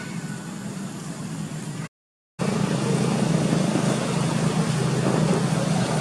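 Steady low background rumble with no clear events. It cuts out to silence for a moment about two seconds in and comes back louder.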